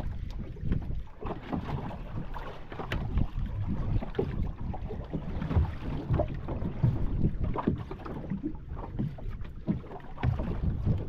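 Wind buffeting the microphone in irregular gusts on a small boat, with short knocks mixed in; no motor running.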